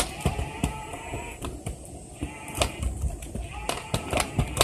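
Kick scooter rolling along a concrete sidewalk, its wheels clacking in quick, irregular taps and clicks, several a second, as they run over the slab joints and rough pavement.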